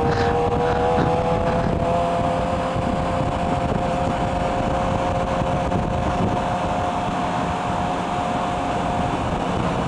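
Motorcycle engine running at a steady cruise under heavy wind and road noise; its pitch rises slightly at first and then holds steady.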